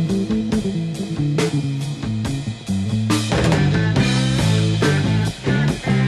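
Instrumental passage of a rock song: guitar and drums with a steady beat.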